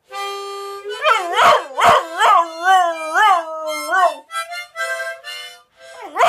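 A harmonica plays held and stepping notes while a 4-month-old boxer puppy howls along, his howl wavering up and down in repeated rises and falls, then rising again near the end.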